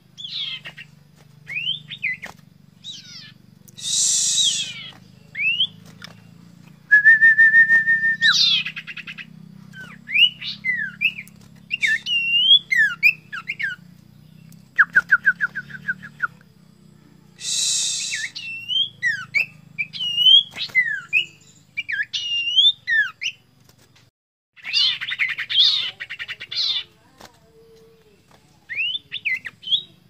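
A caged sirtu songbird singing a varied song of whistled slides, fast trills, one held whistle and several harsh chattering bursts: the challenge song it gives when seeking a rival, in a full, clear voice. A steady low hum runs underneath.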